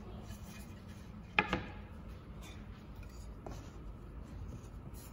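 MDF jig parts knocking and rubbing as they are handled and push-fitted together by hand, with one sharp knock about a second and a half in and a faint tick later. A steady low hum of room tone lies underneath.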